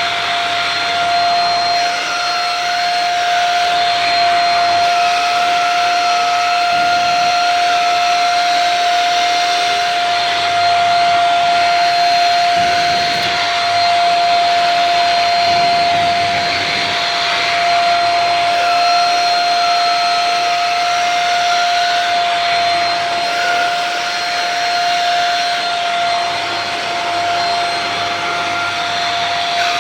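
Shark Rocket TruePet vacuum running with its motorized mini tool while cleaning cat hair off fabric. It makes a steady high whine over a constant rush of air, with a fainter tone that wavers.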